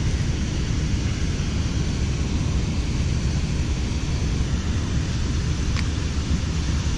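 Steady rushing of a fast, high river current, heaviest in the low end.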